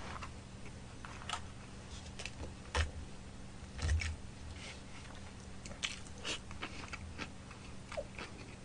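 A person chewing and crunching kimchi close to the microphone, with many small wet clicks. There are two dull knocks about three and four seconds in.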